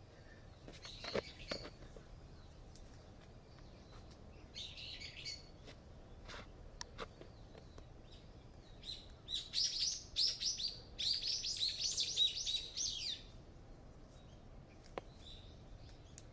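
Songbird singing outdoors: a couple of short chirpy phrases early on, then a fast run of high, quickly falling chirps lasting about four seconds in the middle. A few faint sharp clicks are scattered through it.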